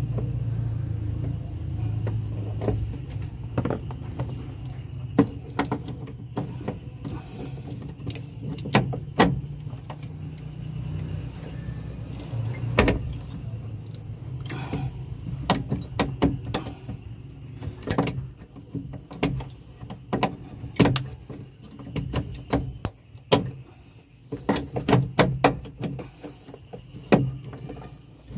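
Irregular metallic clicks and knocks of hand tools working on the vehicle's clutch hydraulics, over a low background hum.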